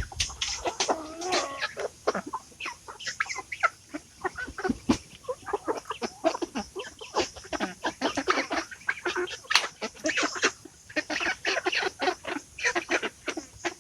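A flock of young chickens, close to four months old, clucking and calling in many short, overlapping calls throughout.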